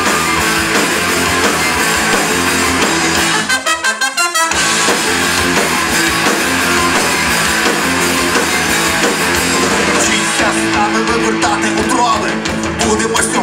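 Live rock band playing an instrumental passage with guitar, bass and drums. About four seconds in the bass drops out for a moment of choppy stop-start playing before the full band comes back in, and singing returns near the end.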